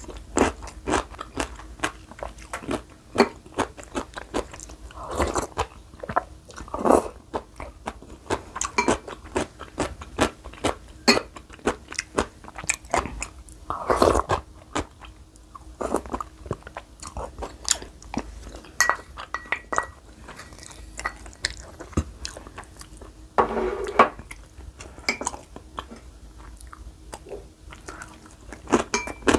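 Close-up eating sounds: crisp radish kimchi cubes (kkakdugi) crunched and chewed, many sharp crunches in quick succession, with a few longer, louder sounds of soup being taken from a wooden spoon.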